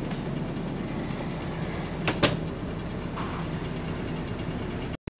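Steady low hum of the motorhome's basement air conditioner running, with two sharp clicks a little after two seconds in. The sound breaks off briefly near the end.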